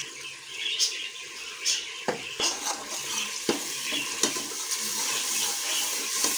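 Chilli, turmeric and onion-garlic masala frying in oil in an aluminium pressure cooker, sizzling steadily while a steel ladle stirs it. The ladle scrapes the pot and knocks against it a few times around the middle.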